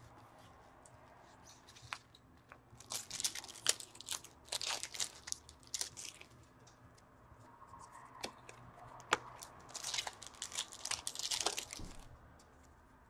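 Hockey card pack wrappers being torn open and crinkled by hand, in two spells of rustling and crackling: one about three seconds in and another about ten seconds in.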